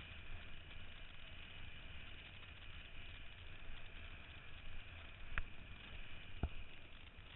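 Steady rush of wind and sea water against a kiteboarder's board-level camera as the rider moves through the water, with two sharp clicks near the end.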